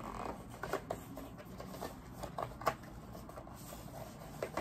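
Cardboard phone-case box being worked open by hand: irregular scrapes, taps and rustles of the box, with one sharper tap a little past halfway.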